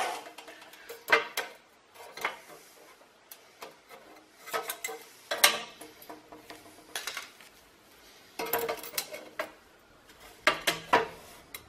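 Cut pieces of 3-inch 304 stainless steel exhaust pipe clinking and knocking together as they are handled and fitted against each other, in irregular light metallic taps, a few with a short ring.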